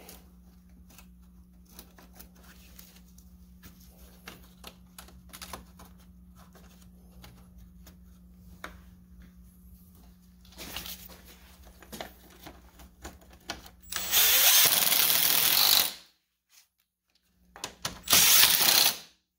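Cordless impact driver (Milwaukee M18 Fuel 1/4-inch hex) run in two short bursts, about two seconds and then about one second, driving 10 mm bolts that secure the electric fan assembly to the condenser. Before the bursts there are faint clicks and knocks of parts being handled.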